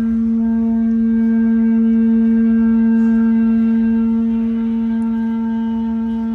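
A single long musical note held steady in pitch, swelling a little in the middle and easing off near the end, with fainter higher tones sounding above it.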